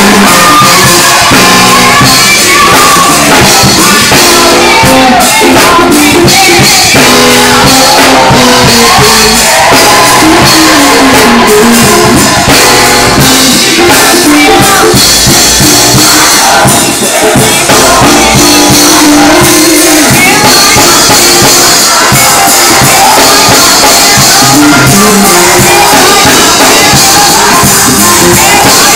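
A live gospel church band playing loud: electric guitar lines over a drum kit with cymbals, without a break.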